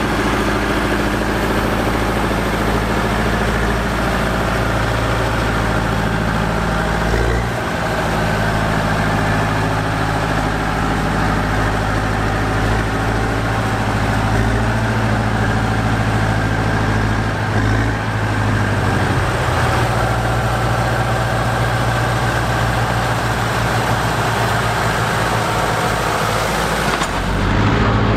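Diesel engine of a Fortschritt ZT tractor running steadily while plowing snow with a front blade, its engine note shifting in pitch a few times.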